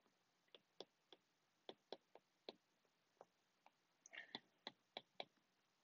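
Faint, irregular clicks of a stylus tip tapping on an iPad's glass screen while handwriting, about a dozen ticks spread across the stretch.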